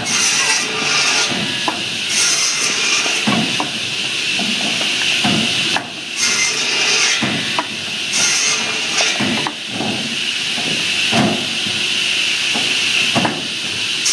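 Homemade firewood saw with an enclosed circular blade cutting logs as they are fed down its chute: a steady hissing whine from the blade in the wood, with irregular knocks as cut pieces drop out, dipping briefly twice between cuts.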